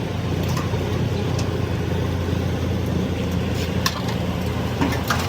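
A vehicle engine running steadily with a low hum, with a few short sharp clicks or taps over it.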